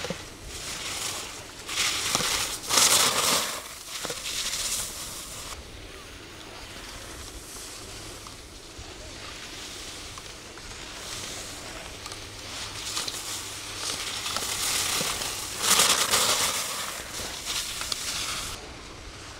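Skis scraping and hissing across snow as skiers pass, loudest twice: about two seconds in and again near the end.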